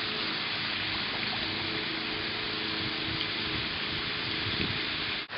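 A steady rushing hiss, even throughout, with a faint low hum that fades out near the end.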